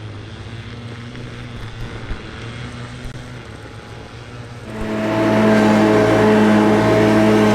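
An engine idling steadily, then throttled up about five seconds in to a louder, steady run.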